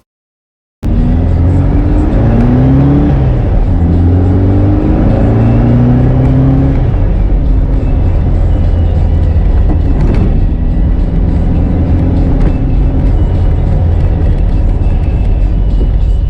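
A 1965 VW Beetle's 1776cc air-cooled engine, with velocity stacks and an A1 exhaust, starts loud about a second in. It revs up several times, each rise dropping back as it shifts up through the gears, then holds a steady cruising note.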